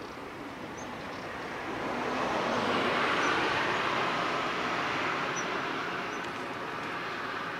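A passing vehicle's rolling noise, swelling to a peak about three seconds in and then slowly fading.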